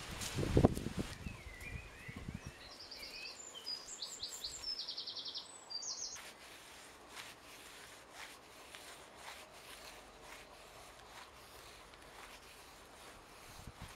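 A small songbird singing a series of high, rapid trills, from about two seconds in until about six seconds in. Just after the start there are a couple of dull thumps, the loudest sounds here. Faint rustles and ticks follow as grass and spear thistle stems are handled and cut with a knife.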